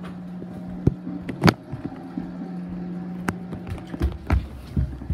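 Footsteps walking across a hard tiled floor, several uneven thumps a second or so apart, over a steady low hum.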